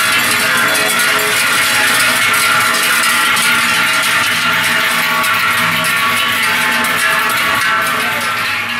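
Many large cowbells carried by marching bell ringers clang continuously, a dense, loud jangle of many overlapping tones.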